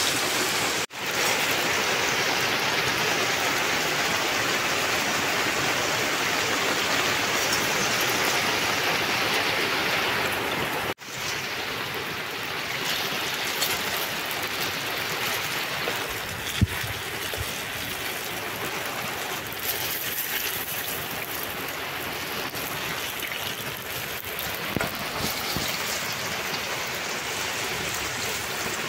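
Batter-coated stuffed spiny gourds (kakrol) deep-frying in hot oil in a kadai: a steady sizzle, which briefly cuts out about a second in and again about eleven seconds in, and is softer after that. A single sharp knock comes about halfway through.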